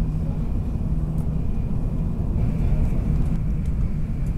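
Steady low rumble of a Tokaido Shinkansen train heard inside the passenger cabin, with a constant low hum and a faint high whine.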